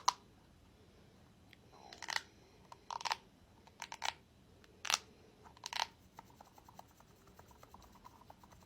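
A ball being handled close to the microphone for ASMR, giving short scratchy, crackling bursts about once a second, then only faint light ticks for the last few seconds.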